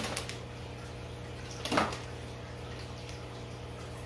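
Steady hum and water trickle of aquarium filters and pumps, with the brief crinkle of a foil snack packet being handled near the start and one short, louder sound a little under two seconds in.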